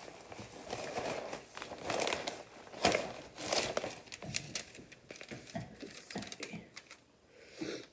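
Crinkling and rustling of disposable foil lasagna pans being handled, in irregular bursts with light clicks, thinning out in the last couple of seconds.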